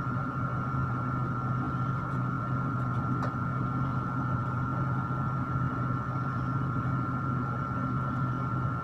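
Electric stand fan running: a steady low motor hum with airflow noise and a constant high-pitched tone.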